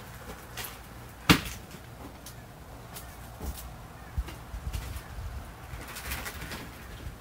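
Footsteps and knocks on a horse trailer's floor as firewood rounds are handled, with one sharp bang about a second in, the loudest sound.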